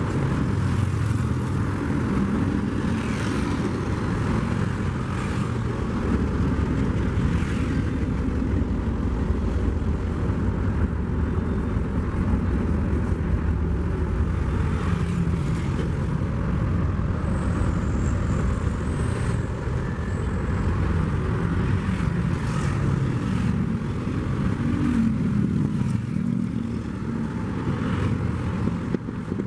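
Steady rumble of a slow work train rolling along the track: a string of flat rail-carrying wagons, with a track-laying machine hauled at the rear.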